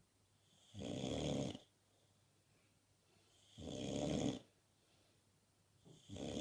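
Bulldog snoring, as is typical for the breed: three snores, each under a second long, about three seconds apart, the last starting near the end.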